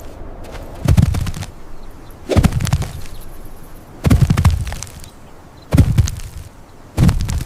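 A series of five loud, heavy thumps or bangs, about one every second and a half, each dying away quickly.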